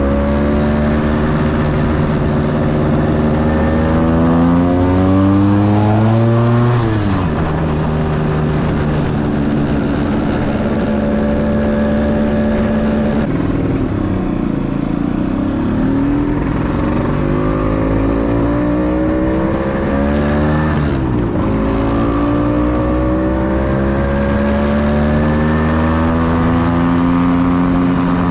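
Scooter engine pulling through traffic. Its pitch climbs as it accelerates, then drops suddenly about seven seconds in and again about twenty-one seconds in. Around the middle it dips and rises again as it slows and pulls away.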